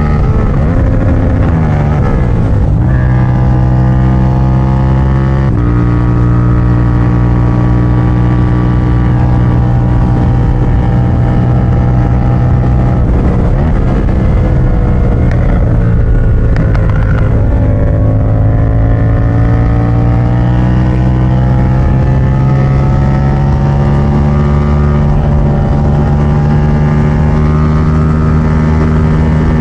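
Yamaha MT-07 parallel-twin engine running loud through a straight-pipe exhaust while ridden with gentle, measured throttle. Its pitch steps a few times early on, dips and sweeps back up around the middle, then climbs slowly near the end.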